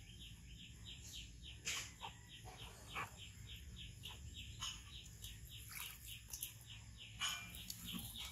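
Water splashing and sloshing in a plastic tub as a baby macaque moves in it, a few short splashes standing out. Behind it, a rapid run of short, high, falling chirps, about four or five a second, from a bird.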